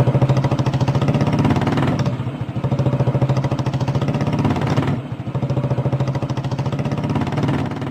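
An engine running steadily with a rapid, even pulsing beat, dipping briefly twice.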